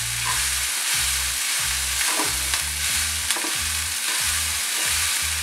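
Spatula stirring and scraping crumbled, steamed moong dal in a nonstick pan over a low flame, with a steady sizzle from the hot oil underneath.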